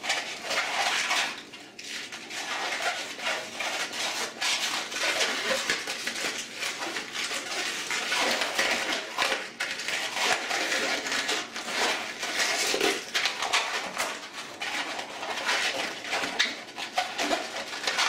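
A small latex balloon being twisted by hand: a run of rubbery squeaks and rubbing as a 5-inch round balloon, inflated only a little, is divided in half and worked between the fingers.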